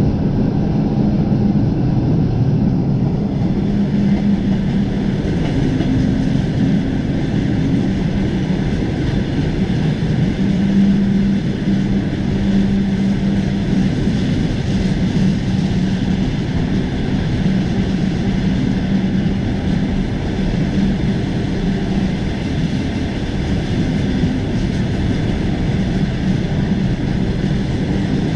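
Passenger train running steadily along the line: a continuous rumble of wheels on rails with a low hum underneath.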